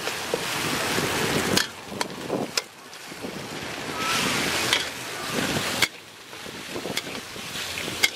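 Stir-frying in a wok: hot oil sizzling in surges, swelling again about four seconds in as the rice goes in and cutting off suddenly near six seconds, with a metal ladle scraping and clanking against the steel wok several times.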